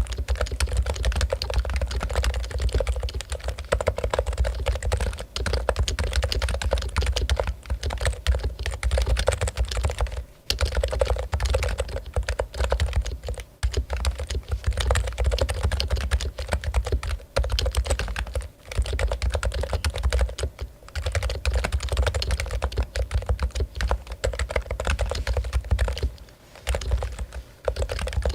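Fast, continuous typing on a Topre Realforce keyboard, its electrostatic capacitive rubber-dome switches giving a dense run of keystrokes broken by a few short pauses.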